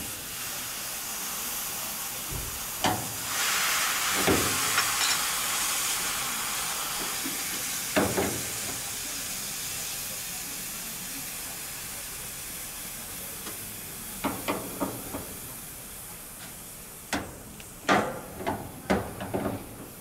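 Refrigerant gas hissing out of a loosened flare nut at an air conditioner outdoor unit's service valve: the gas trapped in the line set after both valves were shut. The hiss is strongest a few seconds in and slowly fades. Sharp metal clinks of the wrenches on the fitting come a few times early on and in clusters near the end.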